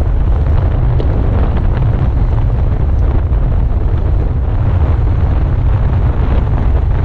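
Wind buffeting the microphone: a steady low rumble with a rushing noise over it.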